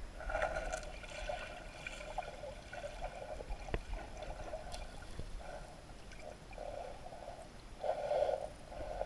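Muffled underwater sound of stream water flowing and gurgling over a gravel bed, heard through a GoPro's waterproof housing, swelling and fading unevenly and loudest about eight seconds in.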